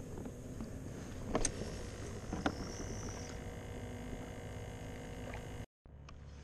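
Handling noise from a spinning rod and reel being worked from a kayak: steady low rumble with two sharp knocks, about a second and a half and two and a half seconds in. The sound drops out for a moment near the end.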